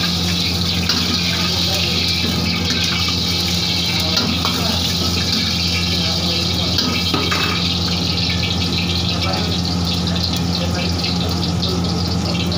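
Hot oil bubbling and sizzling in a large iron wok over a gas burner: a steady hiss over the constant low rumble of the burner's flame.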